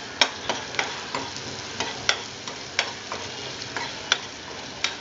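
Chopped onion with turmeric and ginger frying in hot oil in a kadai, sizzling steadily, while a steel slotted spoon stirs it, striking and scraping the pan in irregular sharp clicks about three times a second.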